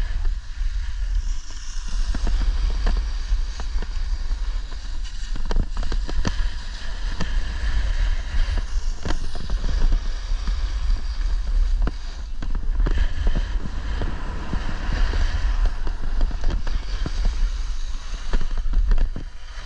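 Wind buffeting the microphone in a steady low rumble, over the continuous hiss and scrape of a snowboard sliding on snow, with frequent sharp clicks and knocks from the board chattering over the surface.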